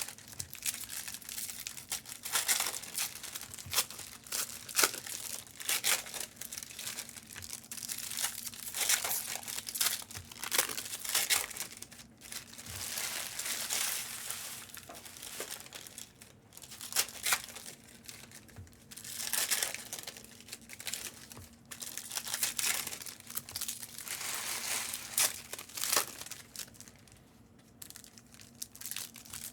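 Plastic trading-card pack wrappers crinkling and tearing as packs are opened by hand, in irregular bursts of rustling.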